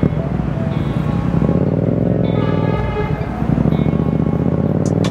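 Yamaha XSR700's parallel-twin engine running through an Akrapovic carbon full-system exhaust with the dB killer removed, riding in traffic. The revs rise about a second and a half in.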